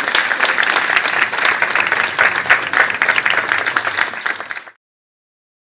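Audience applauding, a dense patter of many hands clapping that cuts off abruptly about four and a half seconds in.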